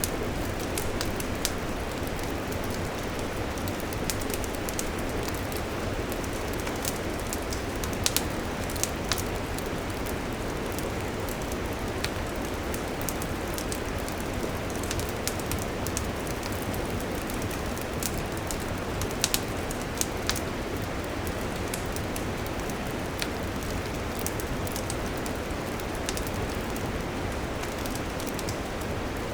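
Wood campfire burning with a steady low rushing and frequent sharp crackles and pops.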